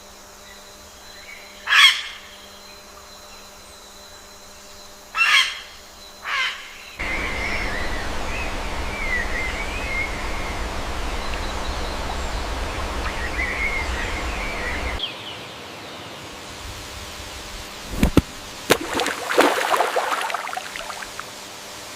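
Birds calling: three loud separate calls in the first seven seconds, then softer chirping over a steady rushing background, a sharp click, and a quick flurry of calls near the end.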